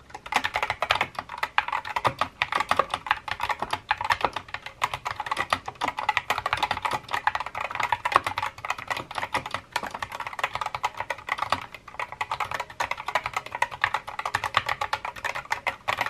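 Fast, continuous typing on a Skyloong (Geek) SK61 mechanical keyboard with red linear switches: a dense, rapid stream of key clicks and clacks.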